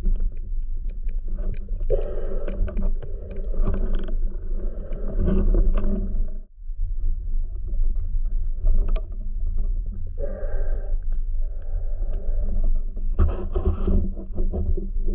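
Muffled underwater rumble and scraping from a camera in a waterproof housing on a speargun, moving through the water. A few louder pitched swells come and go, and the sound drops out briefly about midway.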